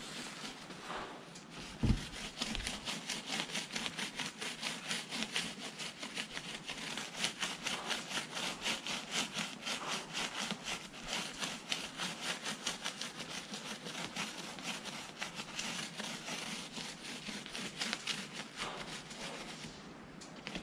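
Stencil brush scrubbing ink through a cut-out stencil onto the face of a wool bale, in quick, even strokes several times a second. A single knock comes just before the strokes settle into their rhythm.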